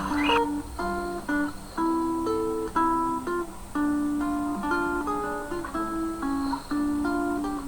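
Relaxing instrumental music: an acoustic guitar picking a slow melody of single notes and chords.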